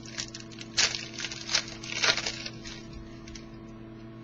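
Hockey trading cards being slid and shuffled in the hands: a few short swishes in the first two and a half seconds, over a steady electrical hum.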